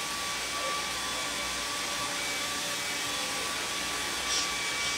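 Hair dryer running steadily: a constant rush of blown air with a faint steady motor whine.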